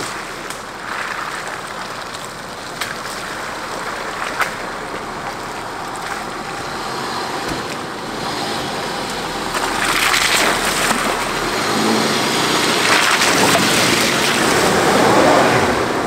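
Holden Adventra crawling slowly through a muddy, rutted track: a low engine note under the steady noise of tyres in mud, getting louder as the vehicle nears and passes close by. Two sharp clicks come about three and four and a half seconds in.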